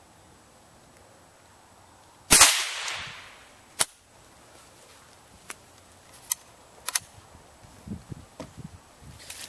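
A single shot from a Savage Model 64 .22 semi-automatic rifle about two seconds in, with a short echoing tail. It is followed by a sharp click and a few fainter clicks.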